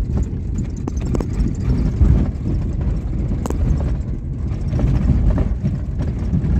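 Car driving on a rough, rutted dirt road, heard from inside the cabin: a steady low rumble with a few sharp knocks and rattles as it goes over bumps.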